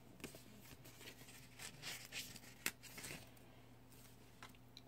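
Faint rustling and a few light taps of paper being handled, likely a sheet of paper planner stickers, against near-silent room tone.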